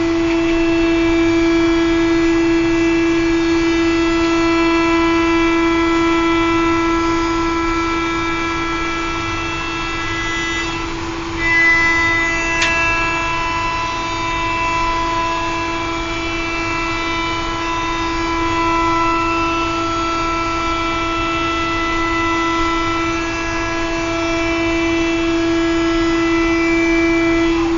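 Circulation pump of a Laddomat 21 wood-stove loading unit running: a steady hum with several higher whining tones that shift about halfway through, and one short click near the middle.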